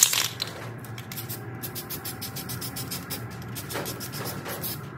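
Aerosol spray paint can: a hiss of spraying that trails off at the start, then a run of quick light clicks as the can is handled and shaken, and two short hisses of spray near the end.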